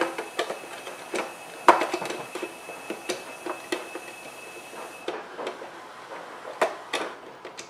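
Scattered light clicks and small knocks of a screwdriver and plastic parts as the replacement lamp module is screwed down into a DLP projector.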